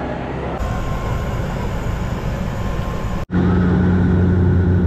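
A steady rushing noise, then an abrupt cut about three seconds in to the louder, steady low drone of a Dash 8 Q400 turboprop's propellers heard inside the cabin in flight, a constant hum with a deep tone and its octave.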